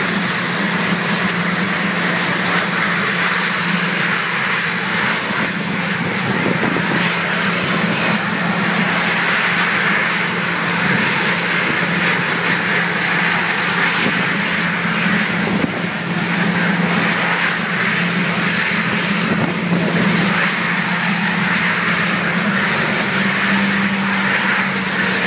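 General Electric J85 turbojet of a jet dragster running, a loud rush with a steady high whine on top; the whine steps up slightly in pitch near the end.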